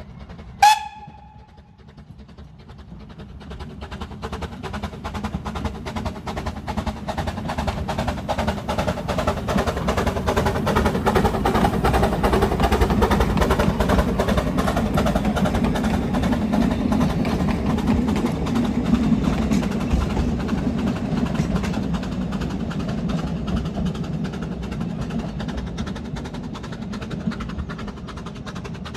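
Davenport narrow-gauge steam locomotive giving one short whistle toot, then steaming past with its exhaust and wheels on the rails. The sound grows louder, peaks around the middle and fades as the train moves away.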